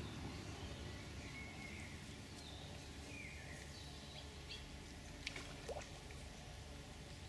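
Quiet outdoor ambience: a steady low rumble with small birds chirping now and then, and a couple of faint clicks about five seconds in.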